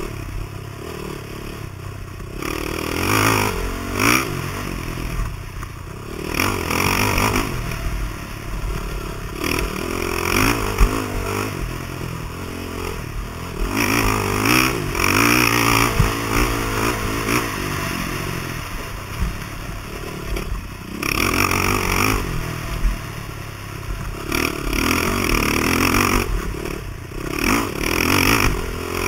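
Off-road motorcycle engine revving, its pitch and loudness rising and falling every few seconds as the throttle is opened and closed.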